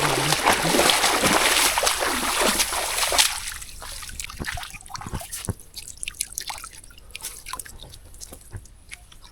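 Shallow water splashing and sloshing, loud and continuous for about the first three seconds, then dropping to softer scattered splashes and drips.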